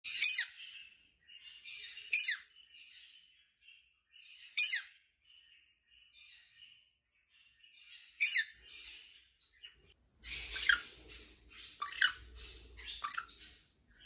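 Female black-capped conure giving contact calls to her mate: a loud, sharp, falling screech every two seconds or so, each followed by softer chattering notes. Near the end the calls come in a quicker, busier run.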